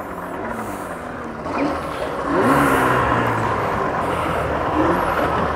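Mercury Verado 300 hp outboard motor running just after starting, then revving up a little about two seconds in. This is the 'Sunk Verado', a motor that had been submerged.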